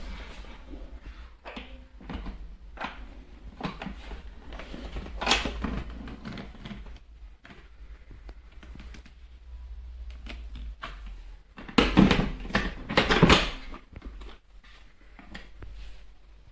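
Irregular clicks and knocks of objects being handled, with a louder cluster of knocks about twelve seconds in.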